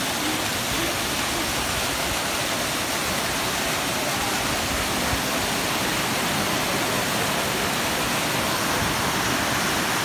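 Water from a small waterfall cascade pouring over rocks into a pool: a steady, unbroken rush.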